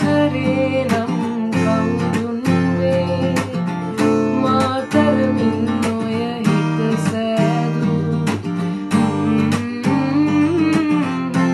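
Acoustic guitar strummed in a steady rhythm, with a woman's voice singing over it at times.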